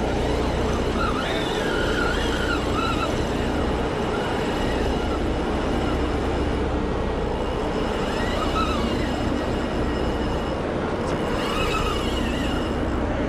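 Steady low machinery drone with constant thin whining tones in it, over wind and water noise.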